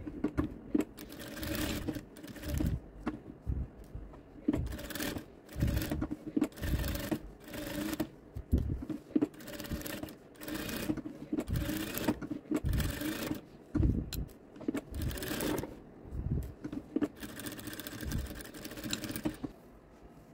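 Joyee industrial sewing machine stitching through thick towel fabric in short bursts, starting and stopping again and again as the fabric is guided, then stopping near the end.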